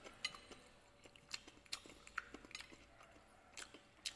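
Faint, irregular clicks and taps of wooden chopsticks against each other and a plate as a piece of kimbap is picked up.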